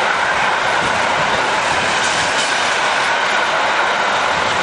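Container freight train passing: a loud, steady rolling noise of its flat wagons on the rails, with a faint steady whine.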